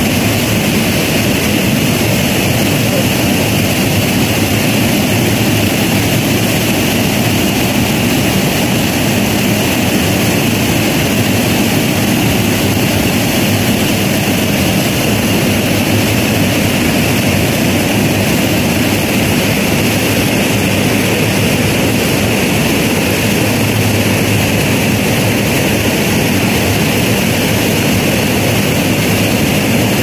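Rushing water from a waterfall and river, a steady loud noise with no breaks.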